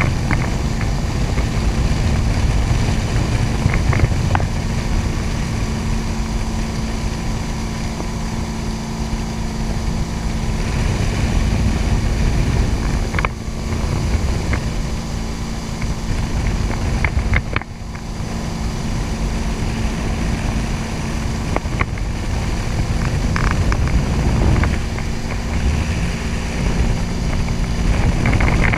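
Motorboat engine running steadily at speed while towing a barefoot water skier, a low drone with wind buffeting the microphone.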